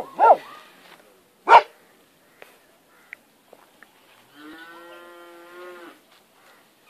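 A dog barks once, loud and sharp, about a second and a half in, just after the end of a run of barks. Near the end, a cow gives a single, much fainter, level moo lasting under two seconds.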